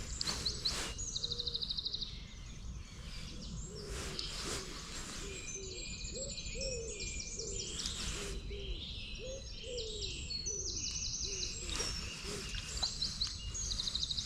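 Several songbirds singing at once in fast, high trills and warbles. From about three seconds in to eleven seconds a lower bird calls in a run of short rising-and-falling notes, over a steady low rumble.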